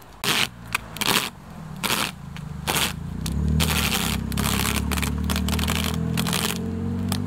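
Duct tape ripped off the roll in repeated loud strips as it is wound around a basketball. A steady low hum starts about three seconds in and runs under the last strips.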